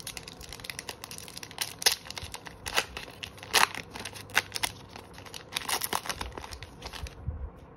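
Foil wrapper of a Pokémon card booster pack being torn open by hand and crinkled: a rapid, irregular crackling with sharper rips. It is loudest about halfway through, and it stops shortly before the end.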